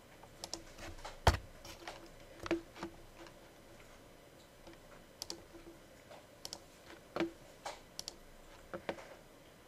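Scattered computer mouse clicks and keyboard keystrokes, irregular and quiet, with one louder click about a second in.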